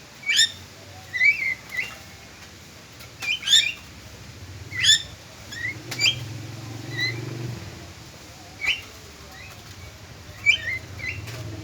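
Javan myna calling: a series of short, sharp, high chirps, singly and in twos, every second or two.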